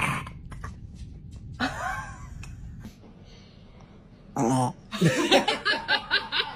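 A person laughing in a quick run of short bursts near the end, after a couple of brief vocal sounds.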